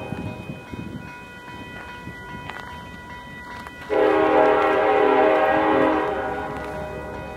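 Diesel locomotive air horn sounding one long blast, a chord of several notes, starting about four seconds in and lasting about two seconds before trailing off. Before it, a low diesel rumble fades away over the first second.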